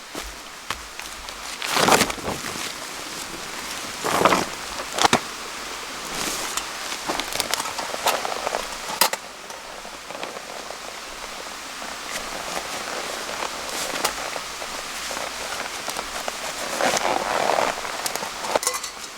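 Wood campfire crackling and hissing, with scattered pops and a few louder rustling bursts.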